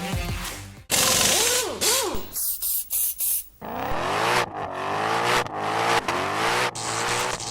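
Vehicle sounds: a car engine whose pitch rises and falls, broken by a few short hissing bursts about two to three seconds in.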